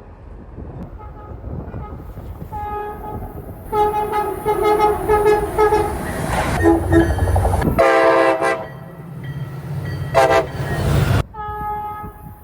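Locomotive air horns blowing over the rumble of a moving train: a run of short blasts, then, after a cut, a different horn sounding twice, and a third horn starting near the end.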